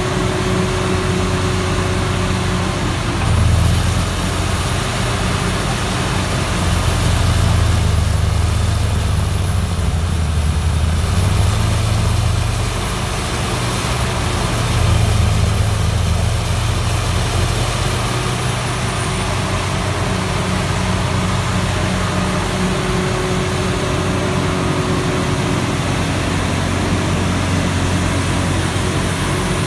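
Vohl VL-200 300 hp loader-mounted snowblower and the Doosan DL250 wheel loader pushing it, engines running hard under load while the blower cuts into a snowbank, with a steady rush of thrown snow. The low engine rumble swells louder about a quarter of the way in and again around halfway, as the blower bites deeper into the bank.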